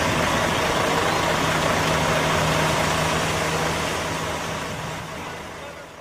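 Concrete mixer truck's diesel engine running steadily while the truck discharges concrete, a low hum under a wash of mechanical noise, fading out over the last couple of seconds.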